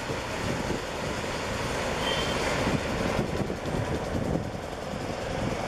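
Freight train of BOBR bogie hopper wagons rolling across a concrete river bridge, heard as a steady rolling noise from its last wagons, with a brief faint high squeal about two seconds in.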